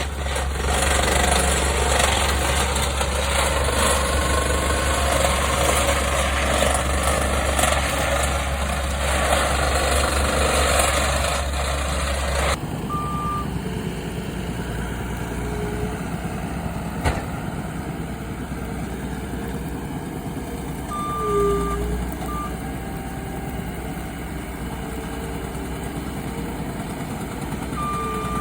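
Heavy construction machinery working backfill: a loud engine and rattling noise for about the first twelve seconds, then an abrupt cut to a quieter running engine with a few short high beeps and a single knock partway through.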